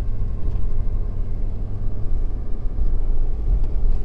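Inside the cab of a 2017 Ford F-250 with the 6.7-litre Power Stroke V8 turbo-diesel, driving on a snow-covered road: a steady low rumble of engine and tyres.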